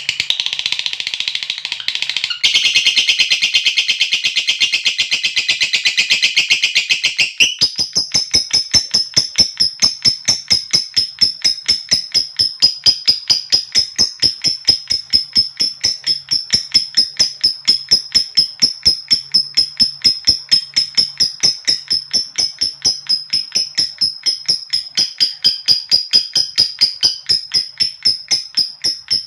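Lovebird giving its long 'ngekek' call: a loud, dense high-pitched chatter for the first several seconds, then a long unbroken string of rapid, high, ticking notes at about four a second.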